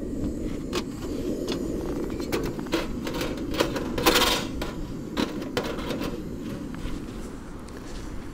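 Metal clicks and clinks from a Bemco backpacking oven's door and racks as pizzas are loaded, with a brief, louder metallic scrape about four seconds in. Under it runs the steady rush of the lit camp stove heating the oven.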